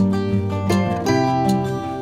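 Instrumental background music with plucked string notes, likely guitar, over a steady beat.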